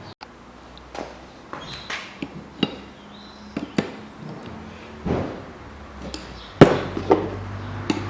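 Two 17 mm wrenches clinking and knocking against a steering tie rod and tie rod end as the lock nut is tightened against the end. The clinks are irregular, with one loudest knock about two-thirds of the way through.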